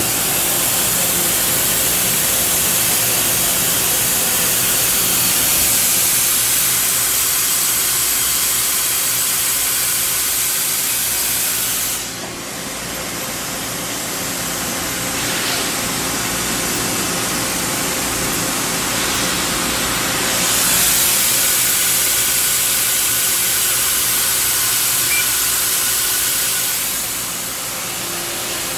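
Mazak QT-10 CNC lathe running: a steady hiss over a faint machine hum. The hiss drops away about twelve seconds in, comes back about eight seconds later, and eases near the end.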